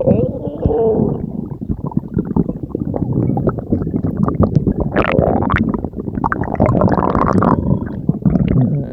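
A person's stomach growling: a continuous low rumble full of crackling gurgles, with higher, louder gurgles about five seconds in and again around seven seconds.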